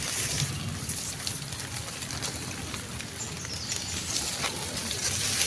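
Outdoor background ambience: a steady hiss with scattered light ticks, and a faint falling high whistle about three seconds in, like a distant bird call.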